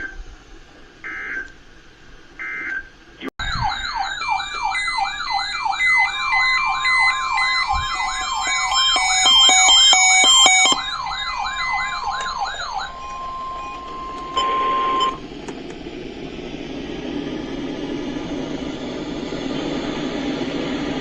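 Emergency Alert System end-of-message code: three short digital data bursts about a second and a half apart. After a sudden cut comes a layered electronic alarm, warbling siren-like tones about four times a second with beeping tones over them, ending in a steady single tone for about two seconds.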